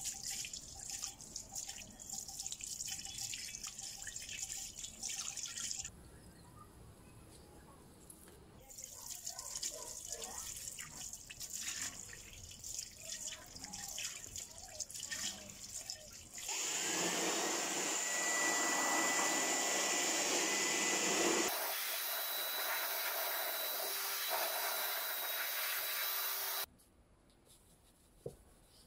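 Soapy water splashing and dripping as an alloy wheel is scrubbed with a sponge and a small brush, in many quick scratchy strokes. About sixteen seconds in, a loud steady rushing noise starts with a motor whine rising at its onset. It changes tone about five seconds later and cuts off suddenly after about ten seconds in all.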